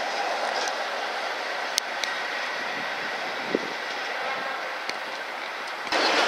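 High Speed Train with a Class 43 diesel power car approaching slowly: a steady running rumble with a few sharp clicks from the wheels on the track. Near the end it cuts off abruptly to a louder, different background.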